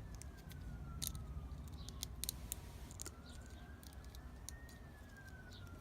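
Small metal clicks and scrapes of a pick probing a pin chamber of a disassembled lock, feeling for a stuck spring. A faint tone slowly rises and falls behind them.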